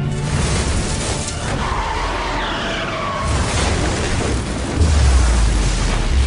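Sci-fi action sound effects from a TV soundtrack: a loud rushing, whooshing noise over a deep rumble, with gliding whine-like tones in the middle. It swells about five seconds in, then cuts off abruptly at the end.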